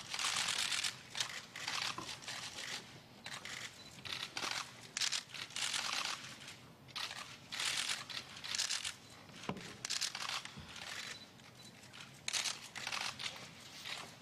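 A large chamber held silent, broken by repeated short bursts of press camera shutters firing, each a second or less, with faint rustling in between.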